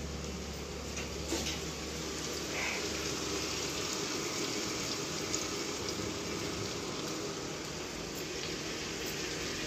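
Chopped capsicum, onion and potato sizzling steadily in oil in a kadhai, with a few light clicks of a knife cutting a tomato over the pan.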